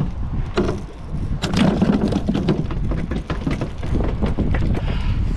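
Wind buffeting the microphone, with a run of knocks and clatter, loudest about one and a half to three seconds in, as a plastic cooler lid is opened and a fish is put inside.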